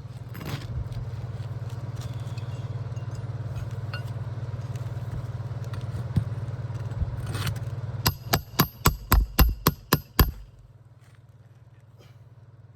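Shingle hammer striking a metal roof snake about ten times in quick succession, roughly four blows a second, with a bright metallic ring, driving a roofing nail in under a lifted shingle. Beneath it a steady low engine-like hum that cuts off just after the hammering.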